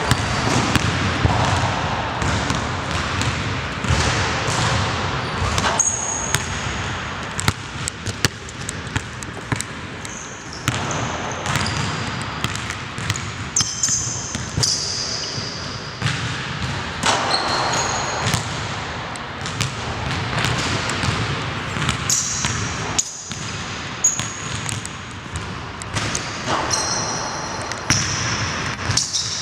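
A basketball being dribbled on a hardwood gym floor, with sharp repeated bounces and short high-pitched sneaker squeaks as players cut and change direction.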